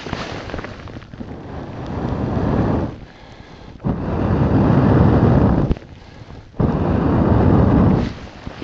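A person blowing on newly lit grass tinder to build up the flame: three long, hard breaths, the first building over about three seconds, the next two shorter.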